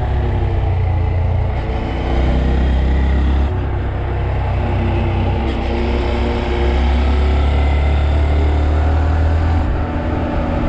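Honda Monkey's small single-cylinder four-stroke engine running under way, heard from on the bike; its note and loudness ease off and pick up again a few times as the throttle changes through the curves.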